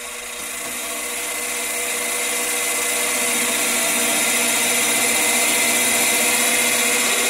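Small metal lathe running, its spinning chuck and drive giving a steady whine with a hiss of cutting as the tool turns down the head of a screw. It grows louder over the first few seconds, then holds steady.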